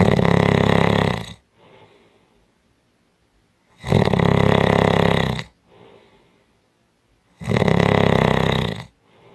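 Person snoring heavily: three loud, rasping snores about three and a half seconds apart, each lasting about a second and a half, with a faint breath between them.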